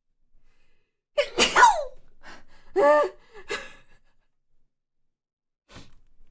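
A person sneezing: a loud, sharp burst about a second in, followed by further voiced sneeze sounds over the next two seconds. A brief click near the end.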